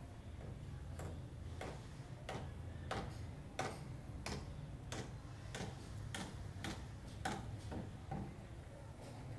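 A regular series of sharp clicks, about three every two seconds, over a steady low hum.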